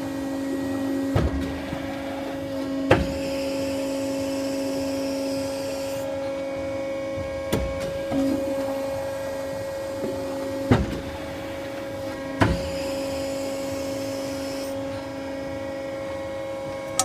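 YLM FM50 tube end forming machine at work: a steady hum from its power unit, broken by about six sharp clunks of the clamping and forming strokes, with two stretches of hiss between them.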